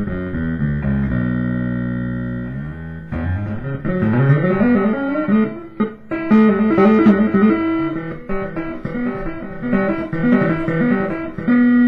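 Five-string Warmoth Jazz Bass played through an 8 Bit Duck bit-crusher pedal into a Music Man HD-130 amp. A low note is held for about two seconds, then a quick run of notes follows.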